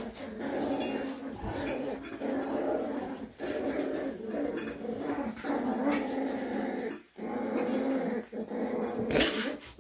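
Cavalier King Charles Spaniel puppies growling and yapping as they play-fight, almost without pause, with a couple of brief breaks.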